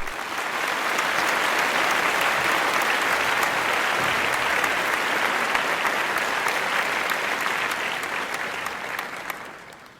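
A crowd applauding: dense, steady clapping that fades out near the end.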